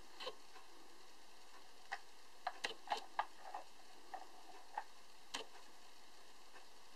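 Scattered light clicks and taps from a tin toy ship being handled in cotton gloves, irregular and busiest a few seconds in, over a steady faint hiss.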